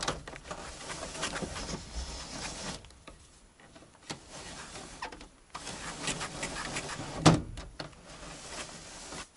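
Clicks and short rattles of a ZAZ-968M car door's interior handle and latch being worked by hand, with one sharp loud click about seven seconds in and a quieter pause in the middle.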